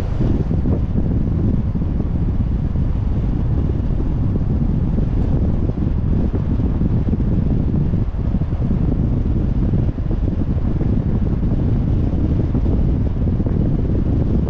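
Wind buffeting the microphone of a car-mounted camera, with the steady rumble of a car driving underneath.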